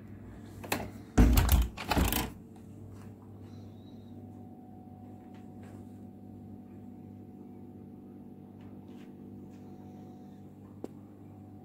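A short cluster of loud knocks and rustles about a second in, lasting about a second, then a steady low hum with a few faint ticks.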